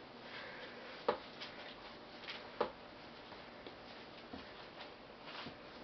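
Two sharp clicks against quiet room noise, the first about a second in and the second a second and a half later, with a few fainter ticks between.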